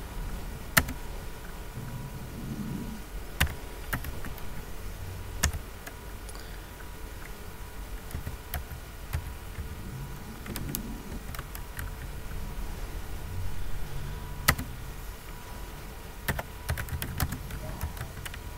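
Computer keyboard keys being typed slowly as a terminal command is entered: single sharp key clicks at irregular intervals, often a second or more apart, over a low steady background hum.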